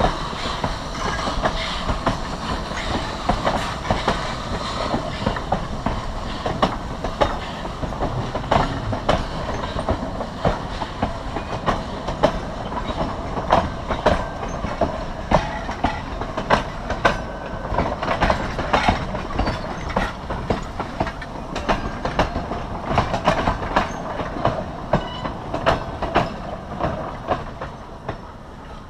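Passenger train cars rolling slowly along the track during shunting, their wheels clicking and clanking irregularly over the rail joints over a steady rumble. The sound gets quieter near the end.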